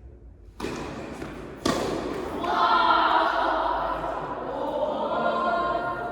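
A tennis ball hit once with a sharp crack a little under two seconds in, followed by several people's voices talking and calling out on the indoor court.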